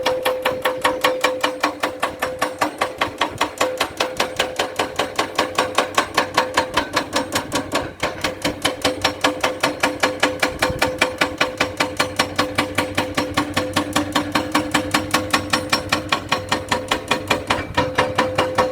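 Heavy machinery running with a rapid, even mechanical knocking, about five blows a second, over a steady engine hum.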